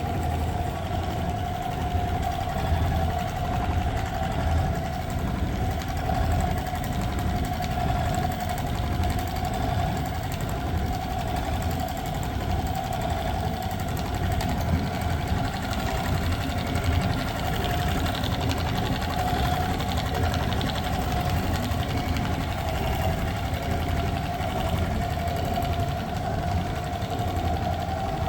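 CNC quilting sewing machine stitching upholstery foam, running steadily: a constant whine over rapid needle chatter.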